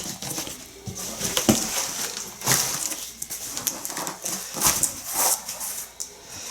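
Packing material being handled and pulled apart, rustling and crinkling in irregular bursts.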